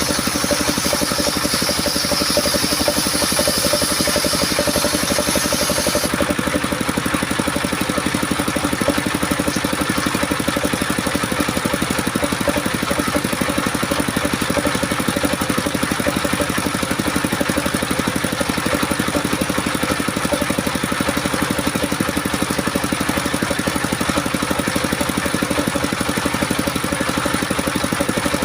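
Engine-driven homemade circular sawmill running steadily. For the first six seconds a high hiss of the blade cutting coconut wood rides over the engine, then stops suddenly, leaving the engine and saw running free.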